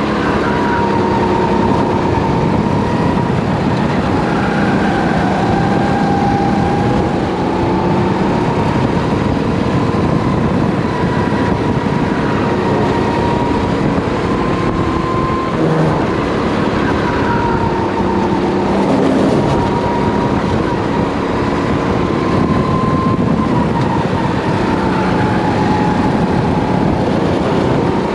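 Race kart engine running hard at speed. Its pitch dips and climbs again every several seconds as the throttle is lifted for corners and reopened on the exits.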